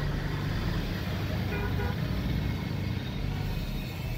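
Steady low rumble of motor vehicles, with a short horn toot about a second and a half in.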